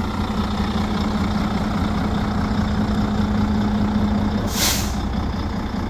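Volvo D12 diesel engine idling steadily in a 2007 Volvo VNL 780. About four and a half seconds in, a steady hum in the idle drops away and a short hiss of air follows.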